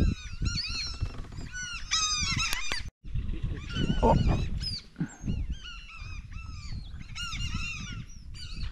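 A large flock of waterbirds calling continually overhead: many overlapping, repeated honking cries, over a low rumbling noise. The sound drops out for a moment about three seconds in.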